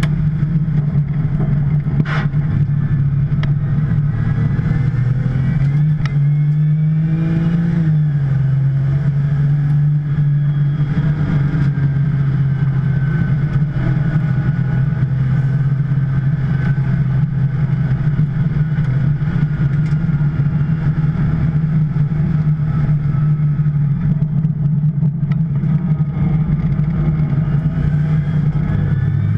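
2010 Porsche 911 Turbo's twin-turbocharged 3.8-litre flat-six running hard at racing speed. Its note climbs briefly about six seconds in, drops back at about eight seconds, then holds steady.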